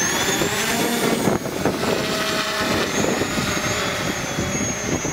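Quadcopter's electric motors and propellers whining as it takes off and flies. The whine finishes climbing in pitch near the start, then holds steady over the rush of propeller wash.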